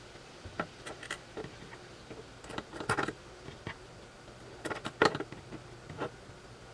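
Scattered light clicks and taps of small metal spacers and ball bearings being handled, slid onto bolts and set against the plastic drive-unit part, at irregular intervals, with the loudest cluster about five seconds in.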